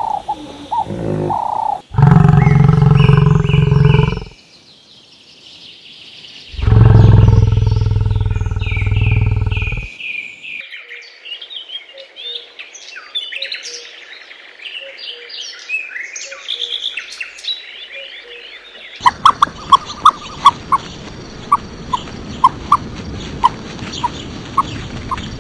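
A run of different animal calls: two loud, deep drawn-out calls, then birds chirping and twittering for several seconds, then a string of short, sharp calls over a steady hiss.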